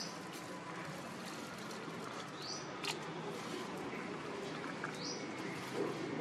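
A bird repeats a short, high, rising chirp twice, about two and a half seconds apart, over steady outdoor background noise, with one sharp click just after the first chirp.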